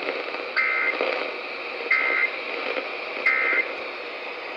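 Three short bursts of Emergency Alert System SAME data tones over steady radio static from a NOAA Weather Radio broadcast, about a second and a half apart. They are the end-of-message code that closes the tornado warning.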